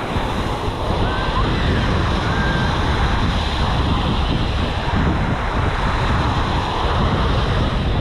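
Small surf breaking steadily on a sandy beach, with wind buffeting the microphone. Faint voices of people on the beach come through now and then.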